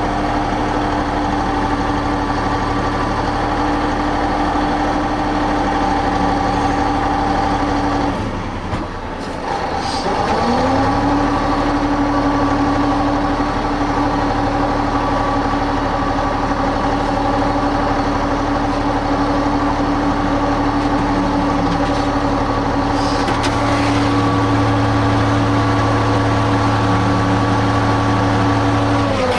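Heavy diesel engine running steadily at high revs. About eight seconds in it drops off, then climbs back up to speed by about ten and a half seconds and holds there.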